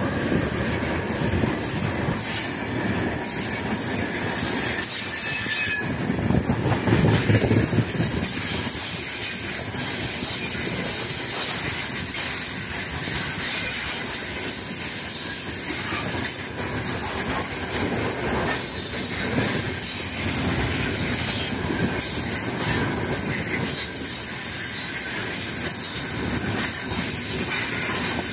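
Heavy loaded freight wagons rolling past close by: a steady rumble of steel wheels on rail, with repeated clicks and knocks as the wheels cross the rail joints, loudest for a few seconds about five seconds in.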